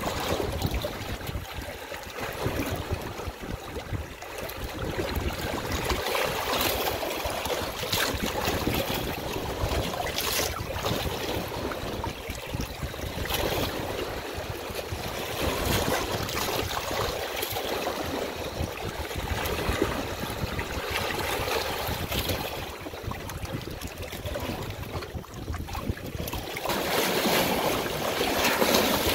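Running water, a steady rushing flow that swells a little louder near the end.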